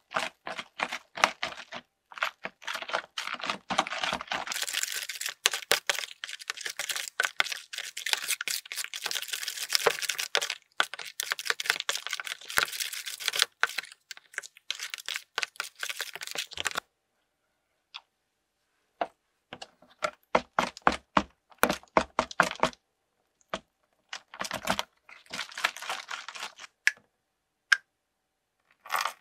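Plastic spatula stirring fluffy slime mixture in a plastic tub: dense wet crackling and squelching clicks for about the first 17 seconds, then a pause and a few shorter bursts of clicking.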